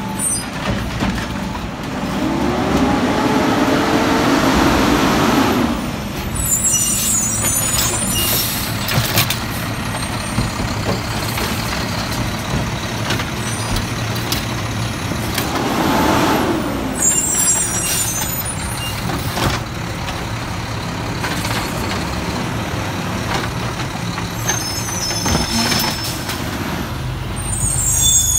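Mack side-loader garbage trucks running: the diesel engine revs up and back down twice as the automated arm lifts and dumps a cart. Knocks from the arm and cart and short air-brake hisses come in between.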